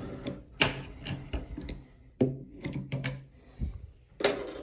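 Pliers clicking and knocking against a metal shower valve body behind the tile: a string of sharp, irregularly spaced clicks, the loudest about half a second, two seconds and four seconds in.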